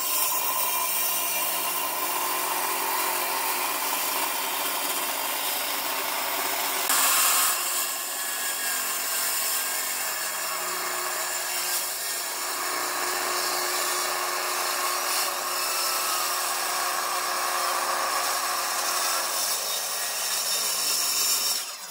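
Electric woodworking power tool running continuously while cutting or machining wood, a steady motor hum under the hiss of the cut. The cut gets louder for about a second near a third of the way in.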